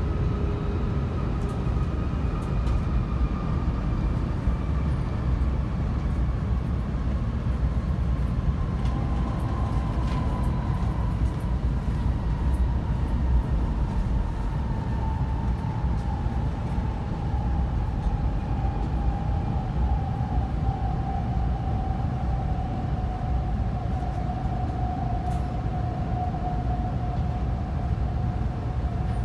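Cabin running noise of a Kyushu Shinkansen 800 series train at speed: a steady low rumble with a faint whine that falls slowly in pitch as the train slows.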